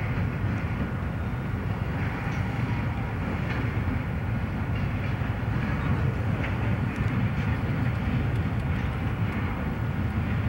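Santa Fe freight train with diesel locomotives passing, a steady low rumble.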